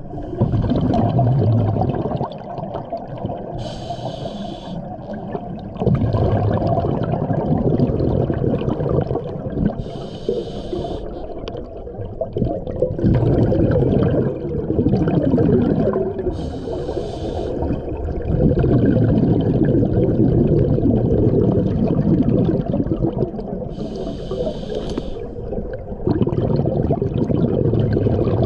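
A scuba diver breathing through a regulator underwater. Each breath is a short hiss followed by a longer, louder rush of exhaled bubbles, repeating about every six to seven seconds.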